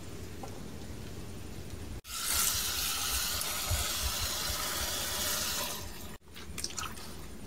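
Tap water running into a steel bowl of leafy plant shoots as hands rinse them. The loud rush of the stream starts suddenly about two seconds in and cuts off about four seconds later. On either side are quieter sounds of the wet leaves being handled in the water, with a few small clicks.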